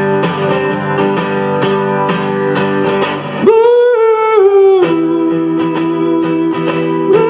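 Acoustic guitar strummed in a steady rhythm while a man sings live into a microphone; about halfway through he holds one long sung note that steps slightly down in pitch.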